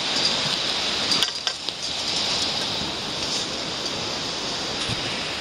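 Steady rushing of flowing creek water, with a few light clicks about a second in and again near the end.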